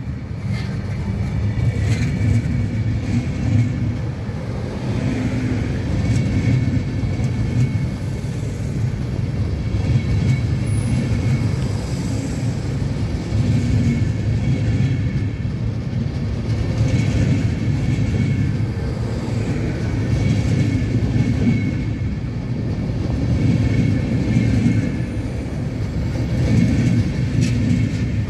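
Train running, a steady low rumble with a faint high squealing tone and occasional clicks.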